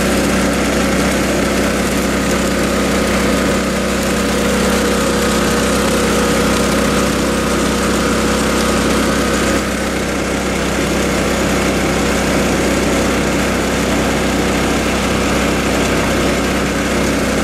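Small gas-powered water pump engine running steadily at a constant pitch, with water rushing down a sluice box.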